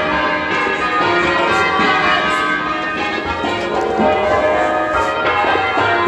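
Change ringing on a ring of ten church bells, a tenor of 19 cwt in E flat, with bells by Warner and Mears, striking in a steady, continuous overlapping stream. Heard from the ringing room below the bells, they sound slightly muffled, with the clapper knock prominent on the back bells.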